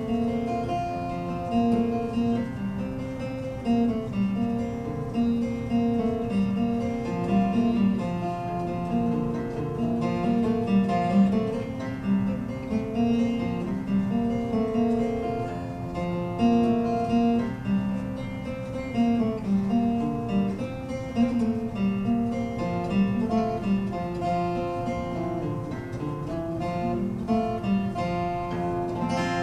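Solo acoustic guitar playing an instrumental passage of the ballad's tune after the last sung verse: a steady, repeating run of picked and strummed notes.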